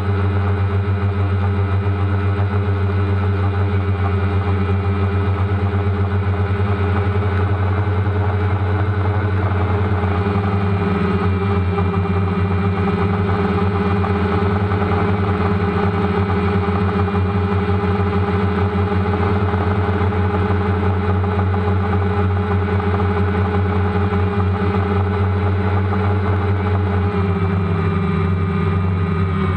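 DJI Phantom quadcopter's motors and propellers humming steadily, as picked up by the camera mounted on the drone itself. The pitch shifts slightly near the end.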